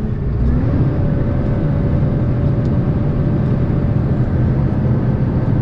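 Semi-truck engine and road noise heard inside the cab while driving, a steady low rumble; the engine note rises about half a second in and then holds steady.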